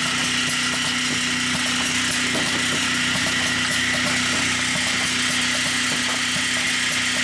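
Vertical form-fill-seal powder packing machine with an auger filler running, filling and sealing sachets: a steady mechanical hum with a high whine over it and faint irregular ticking.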